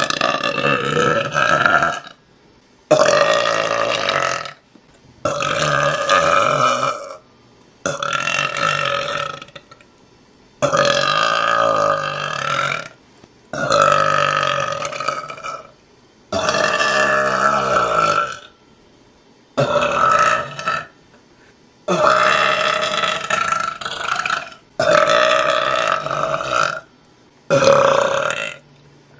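A young woman burping again and again: about eleven drawn-out belches, each lasting one to two seconds, with short pauses between them.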